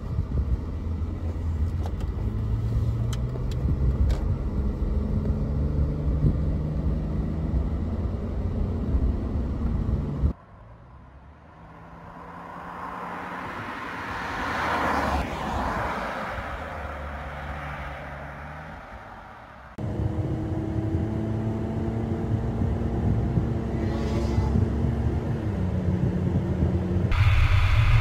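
BMW E39 530i Touring's straight-six engine pulling through the gears, its pitch climbing and dropping back at each upshift. About ten seconds in it goes quieter as the car drives past, the engine and tyre noise swelling and fading, then the engine is heard accelerating through the gears again, louder near the end.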